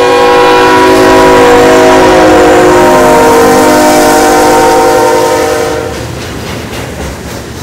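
A CSX diesel freight locomotive's multi-chime air horn sounds as the engine passes, and its chord drops in pitch about two seconds in as it goes by. The horn stops about six seconds in, leaving the rumble and clatter of coal hopper cars rolling past.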